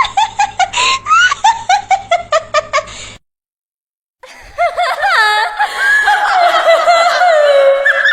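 A woman's evil cackling laugh: a rapid staccato run of "ha"s for about three seconds, then a second of silence, then a high, wavering, drawn-out cackle that slides up and down in pitch.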